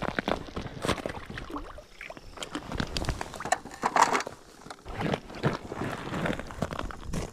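Irregular clicks, knocks and rustling, like gear being handled close to the microphone, over a rough background noise.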